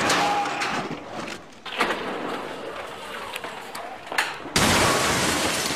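Sound effects of a tricked-out sports car being catapulted off a launch tower: a sudden thump and rush of noise at the start, quieter rushing noise with a few clicks, then an abrupt, loud, deep rushing rumble from about four and a half seconds in.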